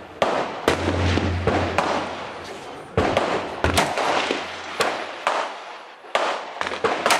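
Gunfire on a shooting range: about a dozen sharp shots at uneven intervals and of varying loudness, from several guns along the firing line, each followed by a short echo.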